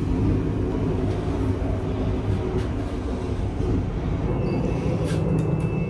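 Steady low rumble of a KTMB ETS electric train running, heard from inside the passenger coach.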